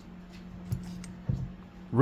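A few faint clicks and a light knock of carburetor parts being handled during reassembly, over a steady low hum.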